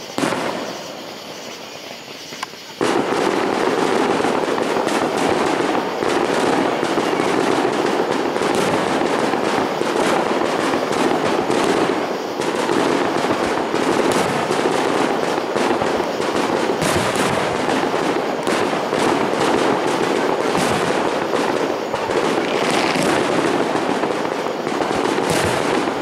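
Aerial fireworks display: a single shell bang right at the start, then from about three seconds in a dense, unbroken string of bangs and crackle from many shells going off in quick succession.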